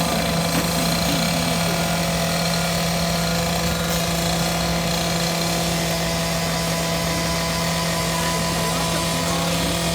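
Excavator engine running steadily at one even pitch while the machine digs.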